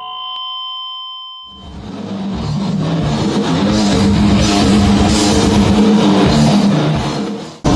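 Heavy metal played on electric guitar, loud and dense, coming in about a second and a half in after a few ringing tones. It drops out for an instant near the end.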